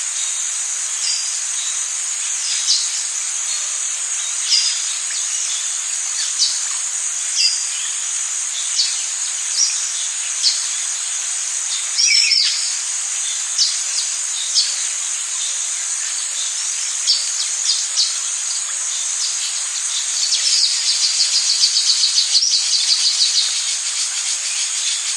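Rainforest insect chorus holding a steady high-pitched drone, with birds calling over it: short clipped calls every second or two, one louder falling call about halfway, and a fast trill for a few seconds near the end.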